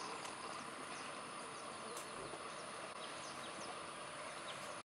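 Steady tropical-forest ambience of insects buzzing, with scattered short, high, falling chirps. It cuts off abruptly near the end.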